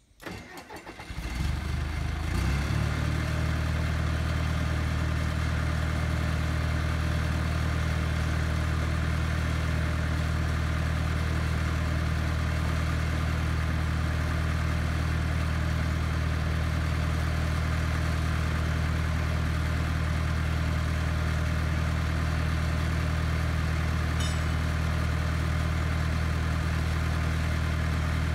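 International Dresser TD8E crawler dozer's diesel engine starting up: uneven pulses in the first couple of seconds as it catches, then a steady idle.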